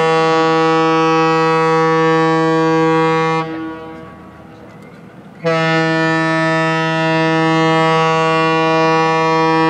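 Ship's horn sounding two long, steady blasts in farewell as a tall ship leaves harbour: the first cuts off about three and a half seconds in, and the second starts about two seconds later.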